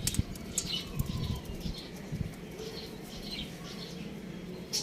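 Chickens moving about, with wing flapping and scattered short, high chirps.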